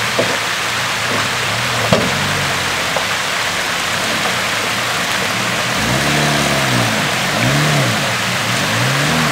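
Chevrolet Niva engine revving up and dropping back three times in quick succession as the SUV crawls over rocks in a shallow stream bed, with a sharp knock about two seconds in. Water rushes over the rocks nearby throughout.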